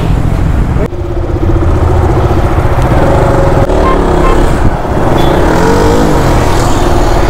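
KTM motorcycle's engine running as it rides off along the road. The engine note rises and falls a couple of times as the bike picks up speed.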